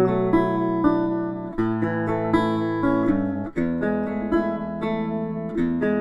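Background music on acoustic guitar: plucked and strummed chords, changing every couple of seconds.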